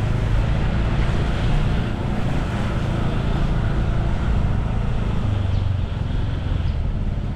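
Steady engine drone and road noise from riding a motorbike through town traffic, with wind on the microphone.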